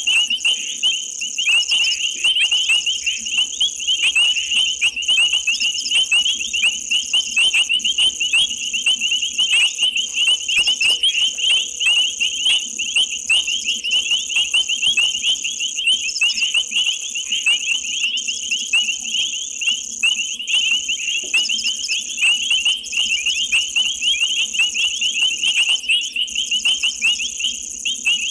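Night chorus of frogs and insects: dense, rapid high-pitched chirping over a steady high-pitched drone, unbroken throughout.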